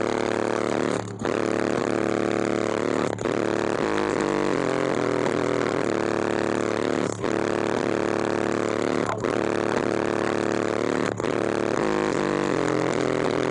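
Car audio system with SMD 18-inch subwoofers playing bass-heavy hip hop at very high volume inside the cabin. The low notes change in steps, with a short break about every two seconds.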